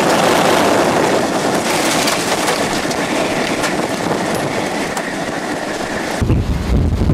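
Loud, steady rush of tornado wind and rain heard from inside a vehicle caught in the tornado. About six seconds in it changes abruptly to a deeper rumble.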